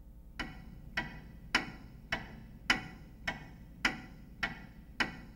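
Clock ticking steadily, a little under two ticks a second.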